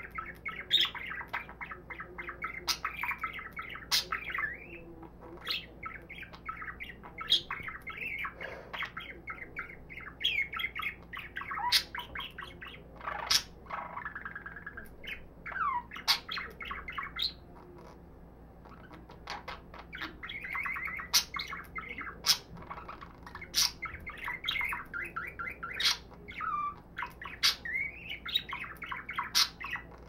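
Budgerigar warbling: a long run of fast chattering, squeaky notes and sharp clicks, with a short pause a little past halfway before it starts again.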